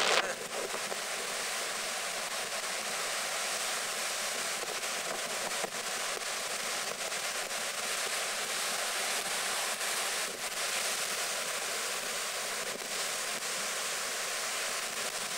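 Storm-surge waves breaking and washing up over a sandy beach at high tide: a steady rush of surf.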